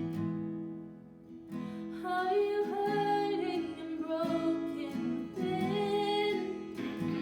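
Acoustic guitar chords ringing while a woman sings long, bending held notes, starting about a second and a half in.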